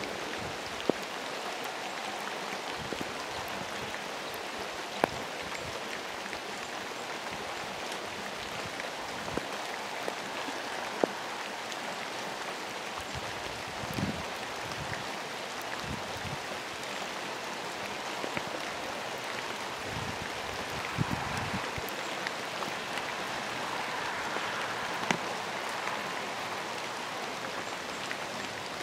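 Steady rain falling, an even hiss, with a few sharp taps scattered through it.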